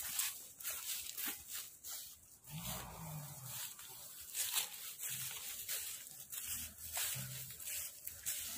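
Footsteps crunching through dry grass, roughly two steps a second, with a few faint low calls in the distance about a third of the way in and again later.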